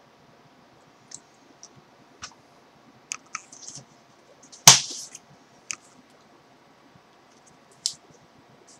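Small clicks and taps from handling a tobacco pipe and its tobacco tin, with one much louder sharp click about halfway through and another shortly before the end.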